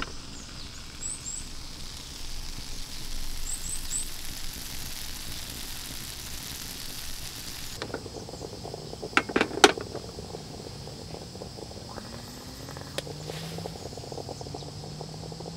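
A steady hiss from a stovetop waffle iron cooking on its burner, with a few faint bird chirps; then, a little past halfway, a quick cluster of metal clanks as the waffle iron is turned over by its handle.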